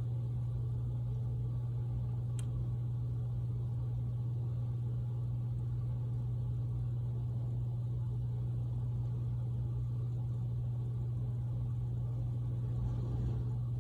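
A steady low hum, unchanging throughout, with a faint tick about two and a half seconds in.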